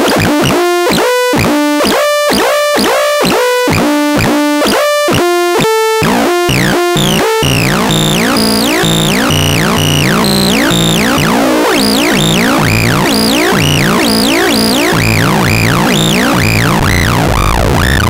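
Behringer System 100 analog modular synthesizer playing a frequency-modulation patch. For the first seven seconds it gives short, separate pitched notes about twice a second, stepping between a few pitches. It then changes into a dense, unbroken tone with repeated swooping pitch sweeps.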